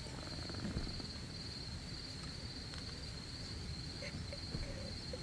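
Crickets trilling steadily in one unbroken high note, over a low background hum, with a few faint clicks.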